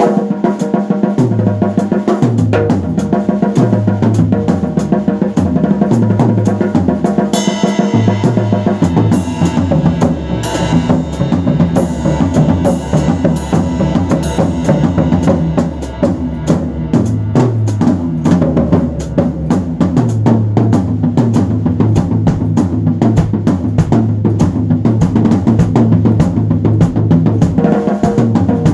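Music driven by a drum kit: bass drum, snare and cymbals keep a steady beat over a repeating bass line. Cymbal crashes come in about seven seconds in.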